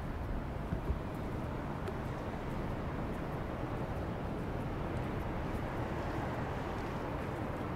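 Steady low rumble of outdoor city ambience, with a few faint clicks.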